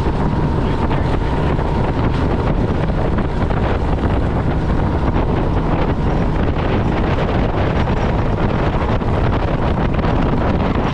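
Steady wind buffeting the microphone aboard a 20-foot Carolina Skiff under way, with the boat's running noise underneath.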